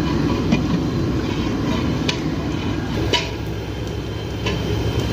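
Steady low rumble of a large cooking fire or burner under the pots, with a few sharp metallic clinks spread through it.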